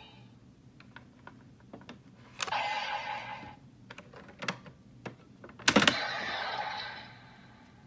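Plastic clicks from a Kamen Rider Legendriver roleplay toy belt being handled as cards are loaded into it. Twice, after a sharper click, the toy's speaker plays a short electronic sound effect of about a second; the louder click comes near 6 s.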